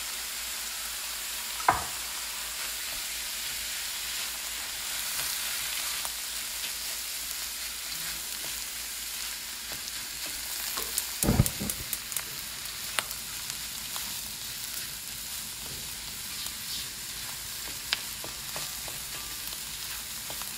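Food sizzling in a hot wok on medium-high heat, a steady frying hiss, as a spatula stirs and tosses it. A few sharp knocks of the spatula against the wok come through, the loudest cluster about halfway through.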